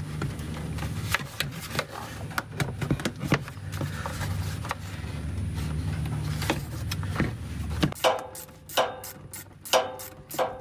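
Ribbed rubber snorkel boot being worked by hand onto a hard plastic riser pipe: scattered knocks and rubbing, then a quick run of short squeaks near the end, over a steady low hum.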